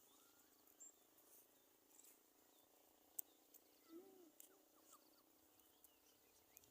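Near silence: faint rural outdoor ambience with a few faint, short chirps and calls and the odd small click.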